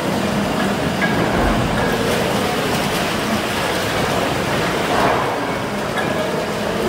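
Steam beam pumping engine running, its rods working up and down in a tank of water, which splashes and churns with foam over a steady mechanical running noise. The level swells slightly about five seconds in.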